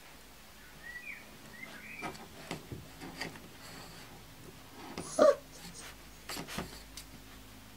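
Kuvasz puppies whimpering with short thin squeals, their paws and claws clicking and scraping on the wooden whelping-box edge, and one loud, sharp yelp about five seconds in.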